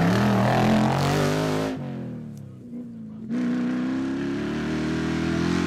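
Rally car engine accelerating, then about a second and a half in the throttle lifts and the revs fall away for roughly a second and a half. The engine then picks up sharply again and pulls at steady, slowly rising revs.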